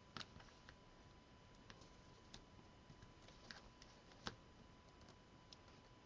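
Near silence with a few faint, sharp clicks and light paper-handling noises as small cardstock pieces are pressed down by fingers on a cutting mat; one click, a little after four seconds in, is somewhat louder.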